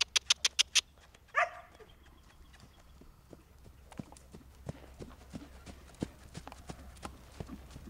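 A quick run of about six sharp clicks and a short call at the start. Then the soft, irregular thuds of a horse's hooves as it trots on the sand arena footing.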